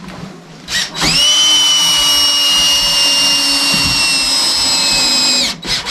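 Power drill spinning up and running steadily for about four and a half seconds as it drives a screw, its whine sagging slightly in pitch under load, with a brief blip of the trigger before and after.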